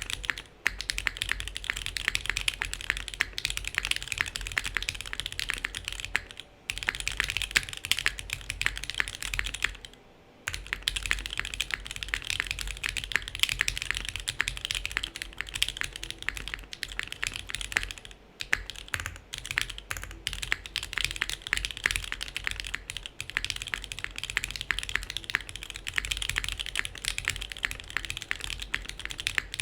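Fast, continuous typing on a SingaKBD Kohaku custom mechanical keyboard with Alpaca linear switches, a polycarbonate plate and GMK keycaps. The dense run of key clacks breaks off for a moment a few times, longest about ten seconds in.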